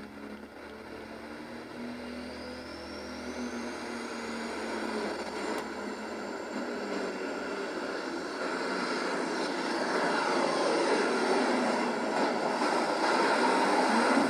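Turbocharged International super stock pulling tractor's engine under full load, making a pull down the track, its noise building steadily and loudest near the end. A high whistle rises in pitch in the first few seconds.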